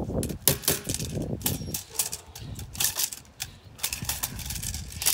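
A cloth tug rag being shaken and yanked while a Malinois puppy bites and tugs on it: an irregular run of sharp flaps and snaps.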